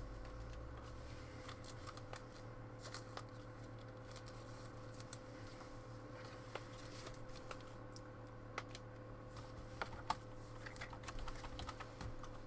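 Faint scattered clicks and soft rustles of trading cards being handled and slid one behind another, with a few more clicks near the end, over a steady low electrical hum.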